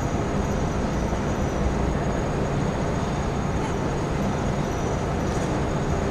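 Steady background noise of a large sports hall: an even hiss with a low, constant hum underneath, and no distinct knocks or steps.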